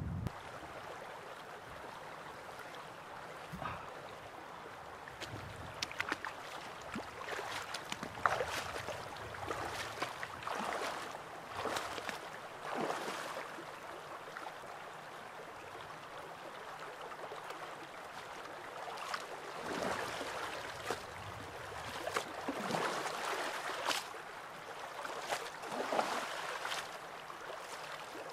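Gila River running steadily over a shallow rocky riffle, with splashing and sloshing every few seconds as a person standing in the shallows scoops and washes in the water.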